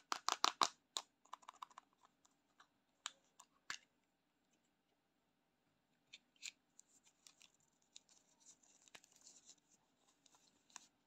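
A hard plastic chewing-gum tape case clicked and handled in the fingers: a rapid run of sharp clicks in the first second, then scattered taps. From about six seconds on, the light crinkling of a thin plastic-film tattoo sheet being unfolded.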